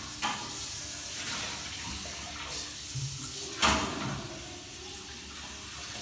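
Water running from a kitchen tap while dishes are washed by hand, with a few sharp knocks of crockery against the sink. The loudest knock comes about three and a half seconds in.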